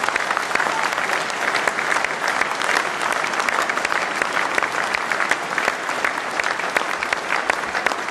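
Large audience applauding, with dense, steady clapping of many hands.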